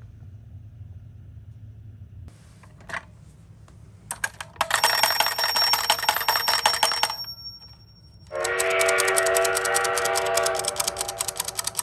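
Toy ambulances running: a fast, even rattle from their small motors and gears about four seconds in for some three seconds. From about eight seconds the rattle comes back under a steady, buzzy electronic siren tone.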